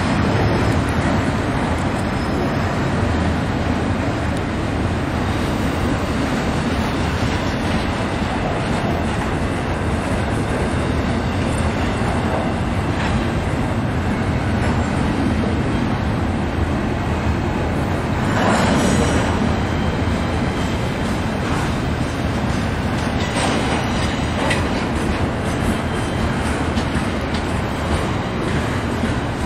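Double-stack intermodal freight train's loaded well cars rolling past: steady running noise of steel wheels on rail, with a brief louder burst about two-thirds of the way through.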